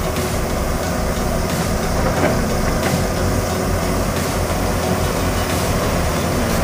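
Komatsu crawler excavator's diesel engine running steadily under load while the arm and bucket dig at a pile of earth and roots, with a few faint knocks.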